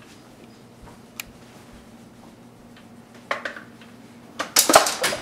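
Hard plastic knocks and rattles as a food processor's work bowl, loaded with roasted vegetables, is set down onto its motor base. The loudest cluster comes near the end, after a quiet stretch with a faint steady hum and one click.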